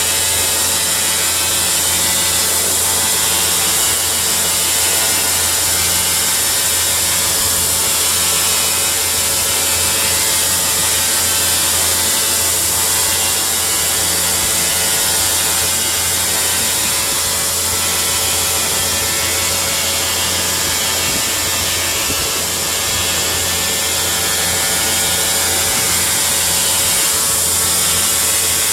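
Large machine tool turning a big engine crankshaft while a journal is machined under flooding coolant: a loud, steady mechanical hum with a constant high hiss of spray and cutting.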